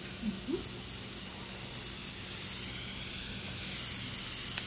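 Dental suction running with a steady hiss, with a faint low hum underneath and a small click near the end.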